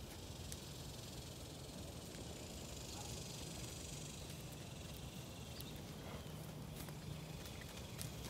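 Horse trotting in a sand arena, its hoofbeats on the sand footing, under a steady hiss that eases off about five seconds in.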